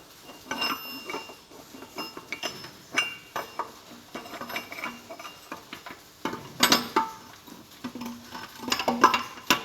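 Steel gearbox gears and mainshaft of a Massey Ferguson 135 clinking and knocking against each other as the gears are worked into place and lined up: irregular light metallic clinks, with sharper knocks about three, six and a half, and nine seconds in.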